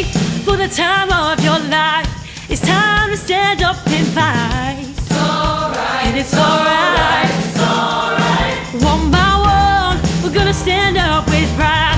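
Female lead vocalist singing phrases with wide vibrato, backed by a mixed group of ensemble singers and a school orchestra. A deep bass part comes in near the end.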